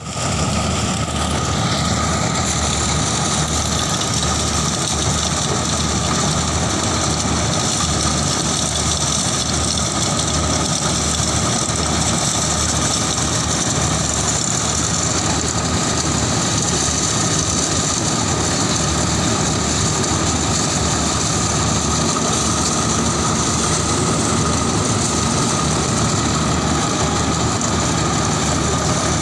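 Corn harvesting machine running steadily: a heavy engine with a fast low throb, under steady high-pitched mechanical whines.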